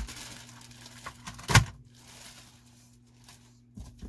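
Handling of plastic-wrapped vacuum parts and the cardboard shipping box: faint rustling with one loud thump about a second and a half in, and a few lighter knocks near the end.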